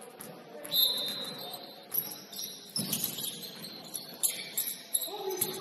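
Basketball shoes squeaking on a hardwood gym floor during play, in short high squeaks, with a dull thud just under three seconds in.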